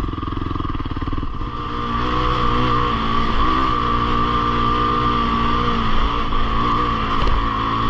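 Fantic Caballero Rally 500's single-cylinder engine running under way, picking up revs about a second and a half in and then holding a fairly steady speed.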